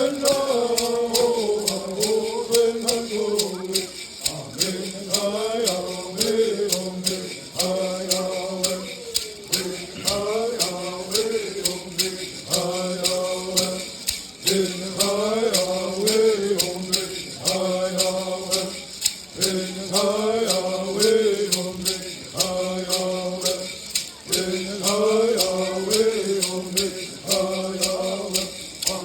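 A male voice chanting a repeated melodic phrase, over and over, above a steady low drone, with a regular ticking beat throughout.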